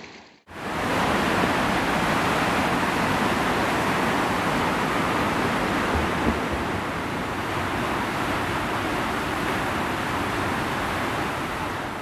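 A waterfall's steady rushing roar as it plunges into its pool, starting abruptly about half a second in.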